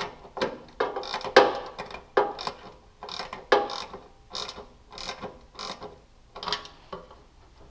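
Ratchet wrench tightening a taillight mounting bolt, its pawl clicking in short irregular runs of strokes.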